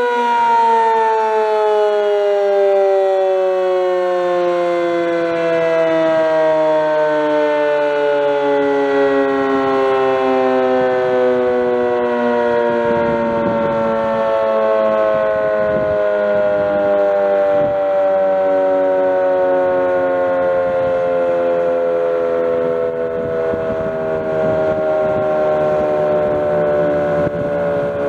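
Sentry 15V2T dual-tone outdoor warning siren sounding its chord, the pitch falling slowly and steadily throughout as the siren winds down.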